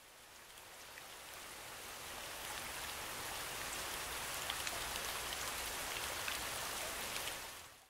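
Steady rain falling, a dense patter of many small drops, fading in over the first couple of seconds and fading out just before the end.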